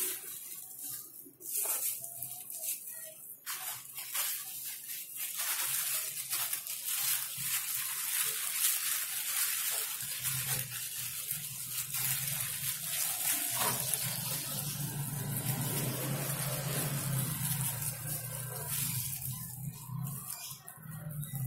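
Clear plastic bag crinkling and plastic raffia rustling as the bag is gathered and tied around a plant pot, with many small sharp crackles. A low steady hum runs through the middle part.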